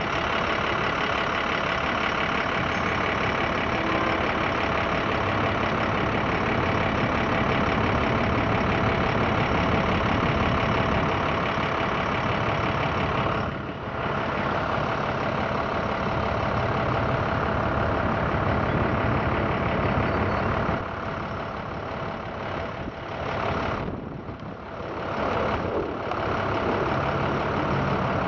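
Steady street traffic and vehicle engine noise, dipping briefly about halfway through and again for a few seconds near the end.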